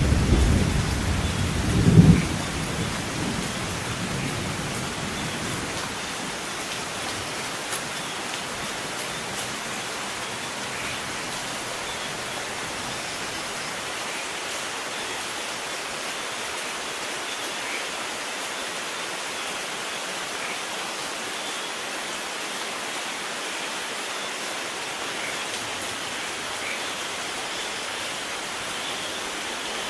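Steady rain falling, with a thunder rumble at the start that swells to a peak about two seconds in and dies away by about six seconds, leaving only the even hiss of rain.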